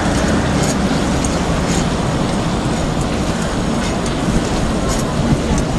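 Chicken pieces and whole tomatoes frying in hot oil in a karahi: a steady, loud sizzle over the rush of a gas burner flame, with a few light clicks of a metal utensil against the pan.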